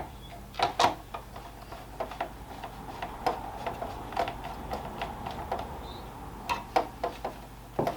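Irregular light clicks and taps of plastic parts and a screwdriver while a plastic gaming steering wheel is screwed back together, a few sharper knocks about a second in and again near the end.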